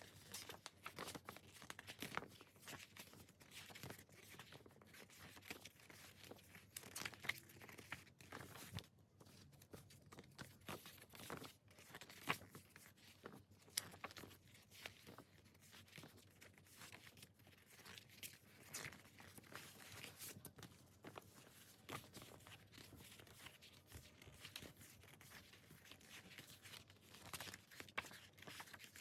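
Faint rustling, crinkling and tearing of K-pop album packaging being opened and handled, with many irregular clicks and taps throughout.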